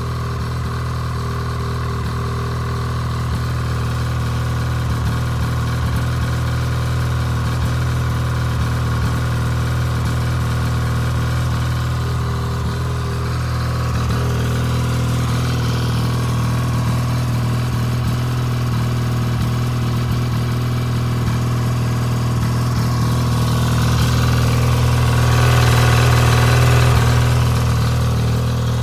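2011 Ski-Doo 600 E-TEC two-stroke twin snowmobile engine idling steadily, swelling briefly a few seconds before the end. The owner thinks he hears a miss or rough idle in it.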